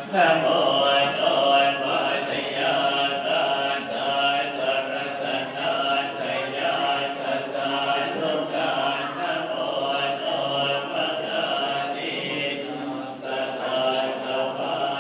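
Buddhist chanting: several voices reciting together in unison without a break.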